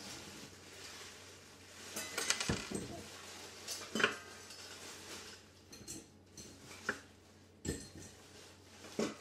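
Dishes and cutlery clinking and knocking as they are handled and set down: a run of clatters about two seconds in, then single sharp knocks and clinks every second or two.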